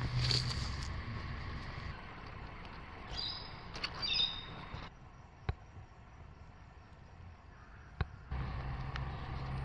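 Bush ambience with a low rumble, a short noisy burst at the start, and a few short bird chirps about three to four seconds in; two sharp clicks follow later.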